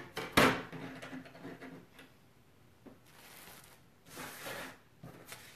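Die-cutting machine parts and craft supplies handled on a tabletop: a sharp clack about half a second in, then lighter rattling, then two short rustling slides near the end.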